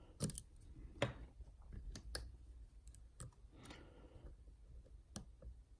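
Lock pick and tension tool working the pins of a Yale Superior pin-and-slider lock: a handful of sharp, separate clicks at irregular intervals as pins set under tension.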